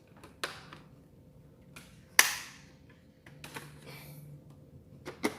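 Sharp plastic clicks and knocks from motorcycle helmet visor parts being handled and fitted. There are about four clicks, the loudest about two seconds in, with a pair near the end and a soft rustle between them.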